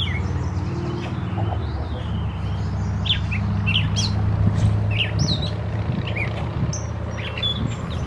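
Songbirds chirping in the trees, many short quick notes scattered throughout, over a steady low rumble.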